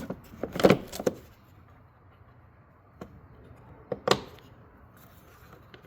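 Plastic knocks and clicks as an engine air filter is set back into its airbox and the lid is fitted: a quick cluster of clunks in the first second, a single knock about four seconds in, and a few light clicks.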